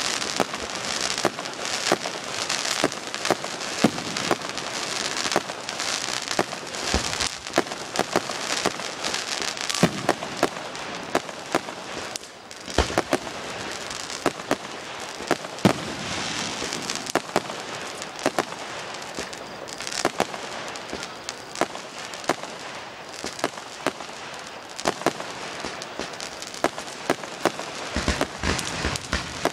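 Fireworks going off: a continuous crackling hiss of sparks with frequent sharp pops and bangs, easing briefly about twelve seconds in.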